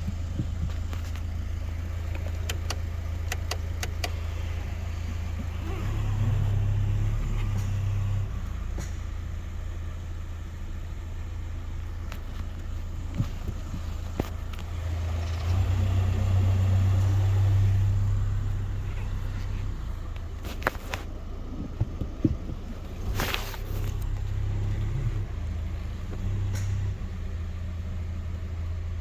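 Car driving with a steady low drone and scattered sharp clicks. The clicking is from the suspension, in the owner's view, and he cannot find its source.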